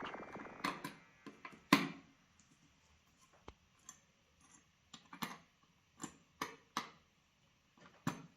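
Irregular light clicks and knocks, about a dozen, spaced unevenly, as of small computer hardware being handled and set down.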